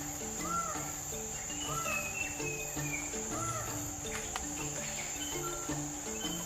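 Forest ambience: a steady high insect drone with short arched bird calls repeating about once a second, over background music of short low notes.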